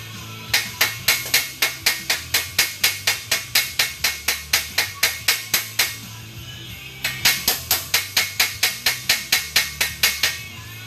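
Hammer peening a rivet that holds a brass crest on a helmet: quick, even light strikes at about five or six a second, in two runs with a pause of about a second in the middle.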